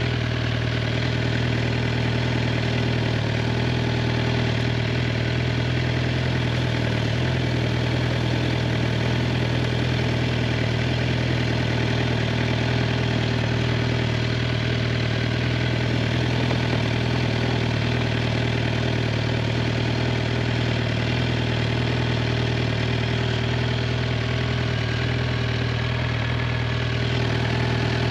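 2023 Suzuki GSX-R 750's inline-four engine running at a steady, unchanging speed, with no revving.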